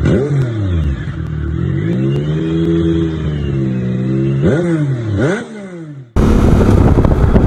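Revving engine sound effect: the pitch falls, swells up and holds, then two quick sharp rising revs before it fades out. About six seconds in it cuts suddenly to steady wind and road noise.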